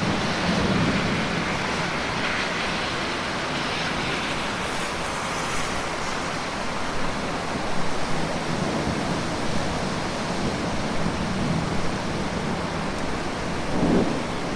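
Steady rain, with low rumbles now and then and a few short pops from a crackling fireplace.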